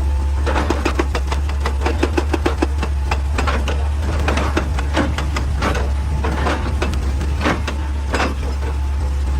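Excavator diesel engine running steadily with a low drone, under a run of irregular, clustered knocks and clatters of hard material.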